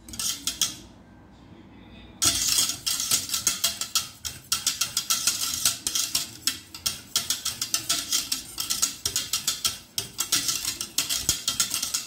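Wire whisk beating a thick cream sauce in a stainless steel saucepan, its wires clinking and scraping against the pot's sides and bottom. A short burst of whisking at the start, a pause of about a second and a half, then fast continuous whisking at several strokes a second.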